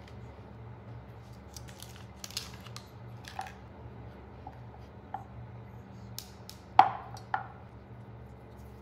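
Crinkling of a small cheese's wrapper being opened, then a kitchen knife cutting the cheese on a wooden cutting board: a few sharp knocks of the blade on the board, the loudest about seven seconds in with a brief ring.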